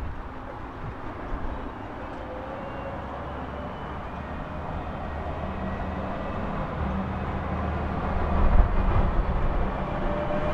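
A large vehicle approaching, its rumble growing louder over several seconds and peaking near the end, with faint high whining tones over the street noise.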